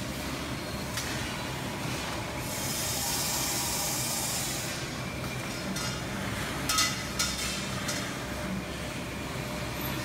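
Automated tube-processing machinery running with a steady hum. A hiss lasts about two seconds, and two sharp knocks come about seven seconds in.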